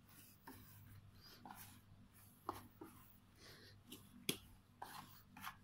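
Quiet, irregular soft smacks and slaps of yeasted bun dough being kneaded by hand on a floured wooden board, the sharpest one a little past four seconds in.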